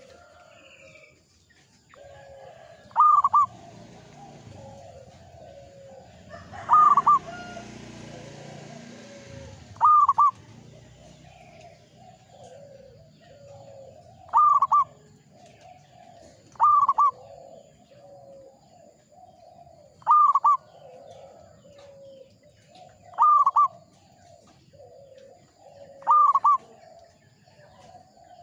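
Zebra dove (perkutut) singing its cooing song over and over: a loud, clear, hooked note about every three seconds, set among runs of softer, lower cooing notes. A brief rushing noise rises under the song at about seven seconds and fades by ten.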